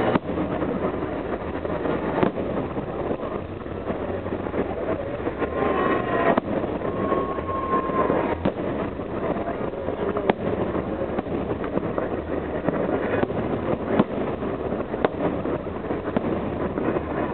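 Festive fireworks salute: sharp bangs at irregular intervals, every second or two, over a continuous rumble and wind noise on the microphone.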